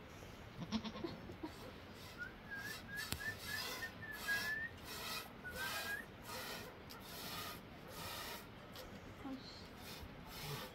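Goat being milked by hand into a pot: milk squirting in short hissing spurts, about two a second. A brief goat call about a second in and a few quick bird chirps between two and six seconds in.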